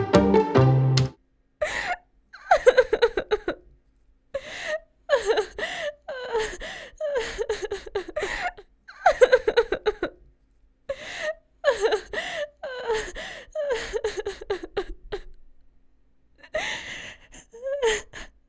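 A person crying: a long string of sobbing, wailing cries, each falling in pitch, with short breaks between them. Music stops about a second in, just before the crying begins.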